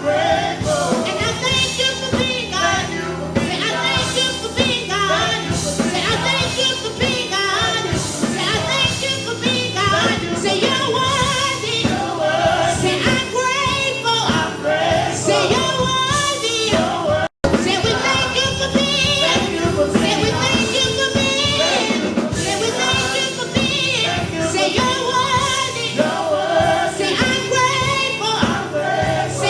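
Gospel worship song: singers and a choir over instrumental backing. The sound cuts out for an instant a little past halfway.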